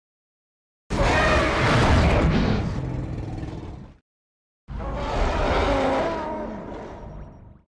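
Two monster roar sound effects for Zilla Junior, one after the other. Each starts suddenly with a deep rumble and wavering pitch, and fades out over about three seconds.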